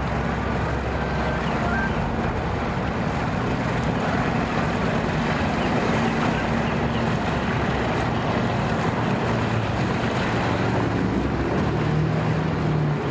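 Boat outboard motor running steadily at low speed, its hum dropping a little in pitch near the end, with wind noise on the microphone.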